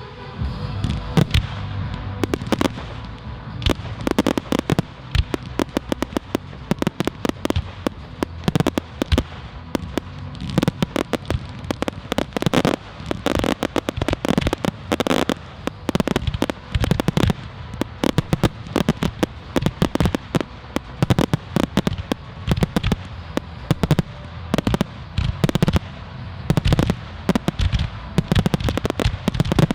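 Fireworks going off in a dense barrage, sharp bangs and crackles following one another several times a second without a break.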